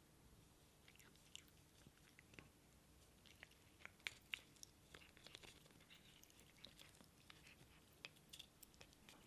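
Near silence with faint, irregular clicks and crackles, two sharper clicks about four seconds in.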